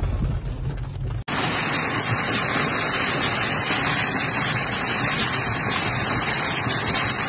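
A low rumble, then, after an abrupt cut about a second in, a loud, steady hiss of storm water: heavy rain and rushing floodwater.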